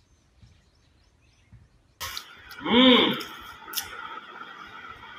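Near silence, then about two seconds in a sudden switch to steady background noise, with one short voice sound that rises and falls in pitch and a sharp click shortly after.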